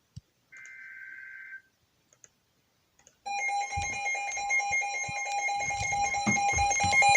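Emergency Alert System broadcast: a burst of about a second of SAME header data, a buzzy digital warble, then after a short gap the EAS two-tone attention signal, 853 and 960 Hz sounded together, starts about three seconds in and holds steady. It is the alert lead-in to a flash flood warning.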